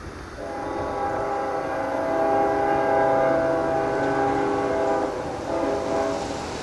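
Kansas City Southern locomotive's multi-note air horn sounding one long blast of about four and a half seconds, then a short blast, over the rumble of the train.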